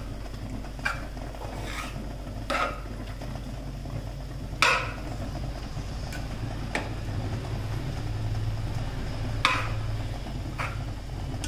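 A steel spoon stirring macaroni in an open pressure cooker pot, scraping and clinking against the metal a few times at uneven intervals, loudest about halfway through and again near the end. A steady low hum runs underneath.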